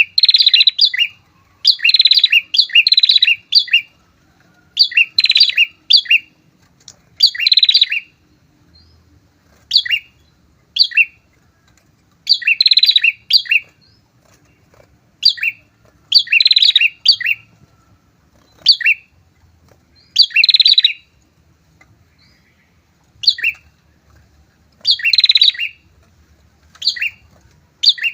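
A pair of prinias (prenjak) singing vigorously: loud, short bursts of sharp, high chirping notes, repeated every second or two with brief silent gaps.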